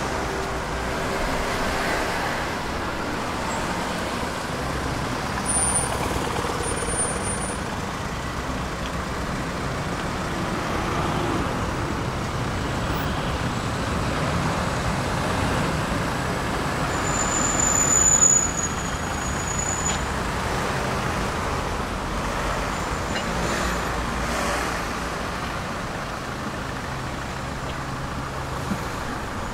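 Tram running, heard on board: a steady rumble from wheels and running gear, with a brief high-pitched squeal about six seconds in and a louder one a little past the middle.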